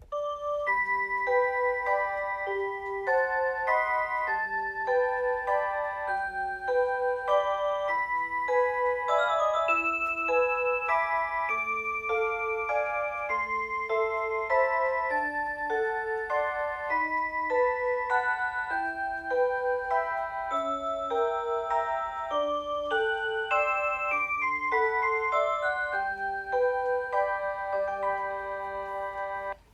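Alarm clock playing its electronic melody alarm: a tune of clean, chime-like tones, often two or three notes at once, starting suddenly and cutting off near the end.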